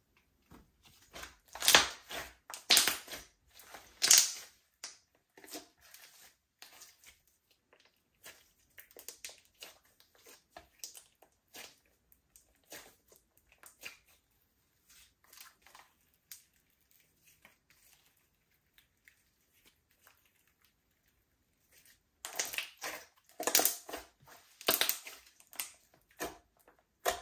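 Slime being squeezed and pressed by hand, giving crackly pops and clicks: loud clusters of pops about two to four seconds in and again near the end, with sparse soft clicks in between.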